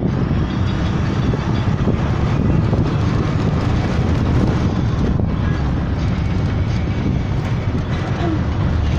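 Steady rumble of a moving vehicle heard from on board: engine and road noise while driving along a mountain road.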